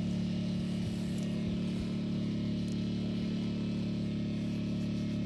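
Steady low motor hum with no change in pitch or level.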